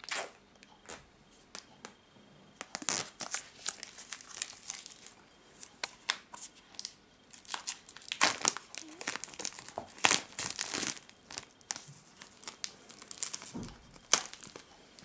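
Clear plastic shrink-wrap being torn and peeled off a phone's retail box, crinkling and crackling in irregular short bursts.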